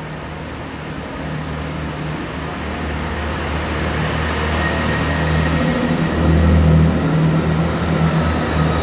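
Class 166 Turbo diesel multiple unit's turbocharged diesel engines running under power as the train pulls away past the platform. The sound grows steadily louder, and a faint high whine comes in about halfway through.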